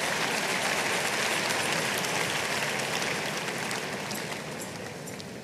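Large audience applauding, the clapping holding steady and then dying away over the last couple of seconds.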